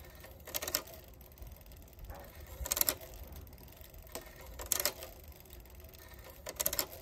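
Chain and chainring of a Swagtron EB15 folding e-bike as the pedal crank turns slowly, giving a short burst of rapid clicking four times, about every two seconds. The chainring wobbles in and out and is not level, which the owner blames for the noise and takes for a bent part that needs replacing.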